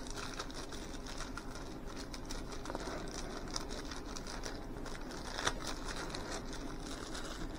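Thin clear plastic sticker bag being handled and crinkled by hand: soft irregular rustling with small ticks, and one sharper click about five and a half seconds in.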